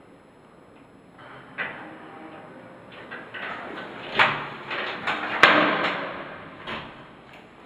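A door being handled: a few sharp knocks and clicks, the loudest about five and a half seconds in.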